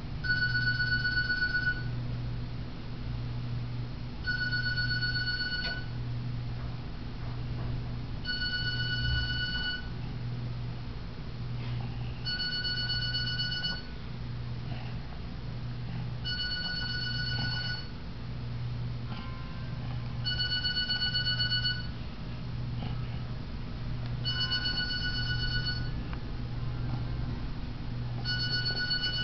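Telephone ringing over and over: a trilled electronic ring about a second and a half long, repeating about every four seconds, eight rings in all, over a steady low hum.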